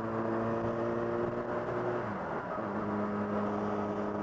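2008 Yamaha FZ6 Fazer's inline-four engine running at road speed. About two seconds in the engine note falls and settles at a lower steady pitch.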